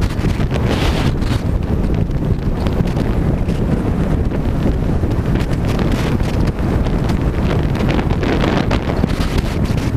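Strong wind buffeting on the microphone of a camera moving fast along a road: a steady, loud, low rush with irregular flutter.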